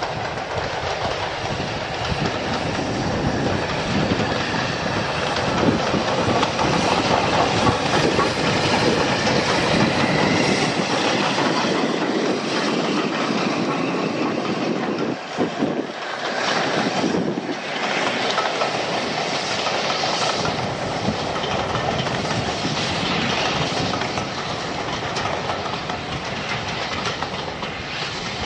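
LNER A4 Pacific steam locomotive No. 60009 Union of South Africa passing with its train of coaches, the wheels clickety-clacking over the rail joints, loud and continuous.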